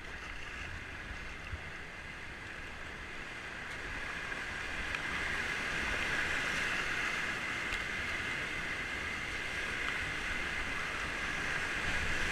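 North Umpqua River water rushing, a steady hiss that grows louder from about four seconds in, with a low rumble underneath.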